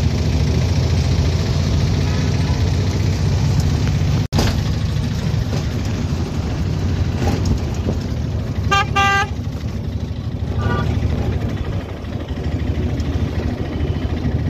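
Auto-rickshaw engine running steadily with road noise, heard from inside the cabin. A vehicle horn honks twice in quick succession about nine seconds in, with a fainter honk a little later.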